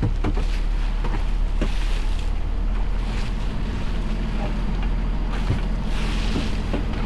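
A boat's engine running steadily with a low hum, under wind and water noise, with a few light knocks scattered through.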